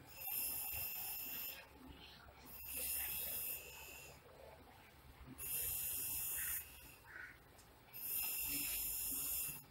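A person breathing close to the microphone: four slow, even breaths of airy hiss, about one every two and a half seconds.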